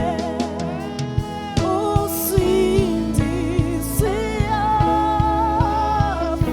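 Gospel worship music: a voice singing a slow, wavering melody over sustained chords, with a steady beat about two and a half times a second.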